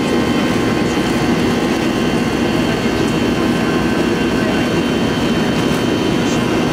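Boeing 737 jet engines heard from inside the passenger cabin: a steady, loud roar with thin high whining tones running over it.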